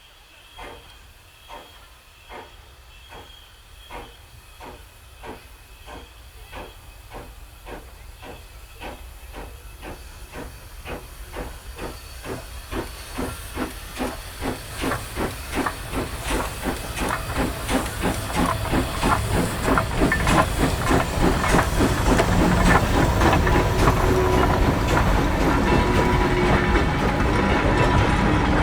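Steam locomotive working: its exhaust chuffs with a hiss of steam, the beats quickening and growing steadily louder as the engine picks up speed and draws near. A steady tone joins in over the last few seconds.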